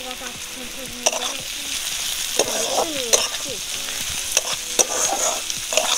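Chopped onion, capsicum and spring onion greens sizzling in oil in a metal kadai while a steel spatula stirs them. The spatula scrapes and clacks against the pan several times.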